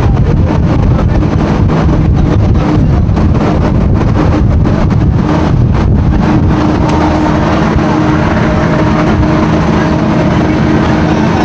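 Steady low rumble of a coach bus's engine and road noise, heard from inside the passenger cabin while the bus is under way.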